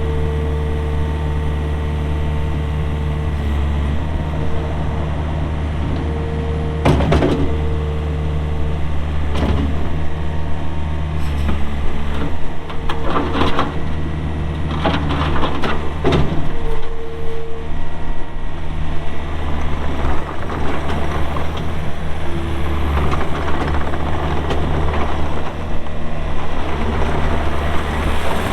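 A Takeuchi TL120 skid steer's pre-emissions Yanmar diesel engine running steadily under work, with a higher whine that comes and goes and a few sharp knocks about seven to sixteen seconds in. The noise grows in the last third.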